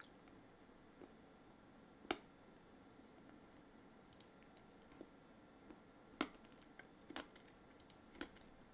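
Near silence broken by scattered, irregular clicks of a computer mouse working a web page, the loudest about two seconds in.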